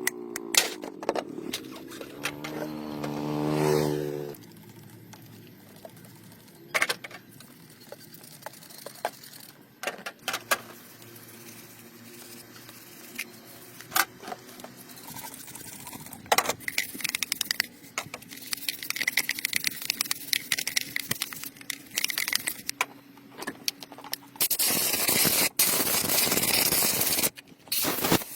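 Workshop tool sounds: a small motor spins up, rising in pitch, and stops about four seconds in; then scattered taps, clicks and scrapes of metal work; near the end a loud steady hiss lasts about three and a half seconds.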